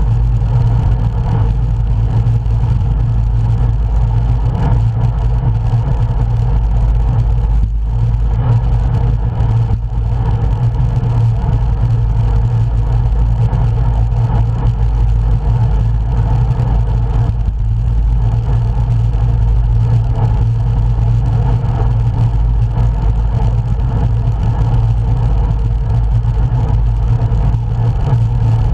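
Steady, unbroken rumble of wind and road noise on a bike-mounted camera's microphone while riding a road bicycle.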